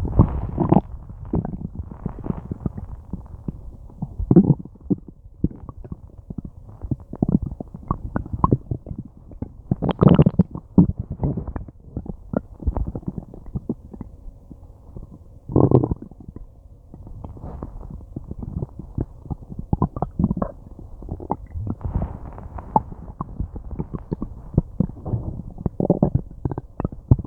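Human stomach and intestines gurgling and rumbling: a continual irregular crackle of small gurgles, with louder swells about 4, 10, 16 and 26 seconds in. These are digestion sounds, the gut working to break down a meal.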